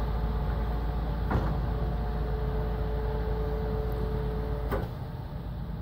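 Truck-mounted hydraulic crane lifting a load: the truck's diesel engine runs steadily, and a steady whine joins a little over a second in. The whine stops with a click near the end, and the engine note then drops.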